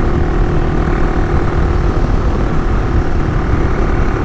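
AJP PR7 single-cylinder dual-sport motorcycle running steadily under way, with rushing riding noise.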